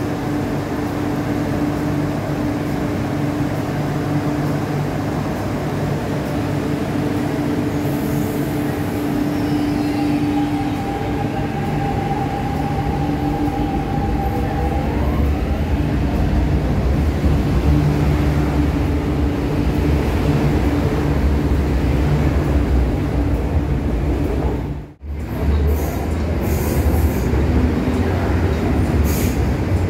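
MTR Kwun Tong Line electric metro trains running at a platform, with steady motor hum and low rumble. About halfway through, a whine rises in pitch and the rumble grows heavier. Near the end, after an abrupt cut, another train is pulling out.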